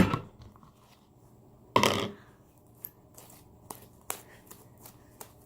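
Hands pulling sticky homemade slime out of a bowl: a sharp knock at the start, a short squelching noise about two seconds in, then a few small sticky clicks.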